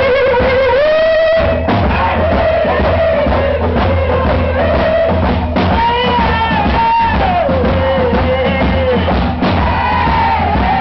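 Live rock band playing loudly: drum kit and electric guitar under a sustained lead melody line that slides and bends in pitch.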